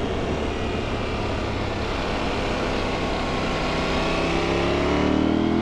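KTM 790 Adventure's parallel-twin engine running under way, with a heavy rush of wind noise over it; about four seconds in the engine pitch starts rising as the bike accelerates.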